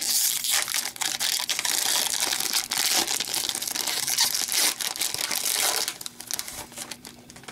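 Wrapper of an Upper Deck hockey card pack being torn open and crinkled by hand, a dense crackle that dies down near the end as the cards come out.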